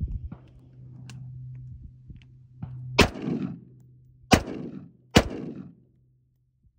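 Three rifle shots from an AR-15 firing .223 rounds: the first about 3 seconds in, the second a little over a second later and the third under a second after that, each followed by a short echo.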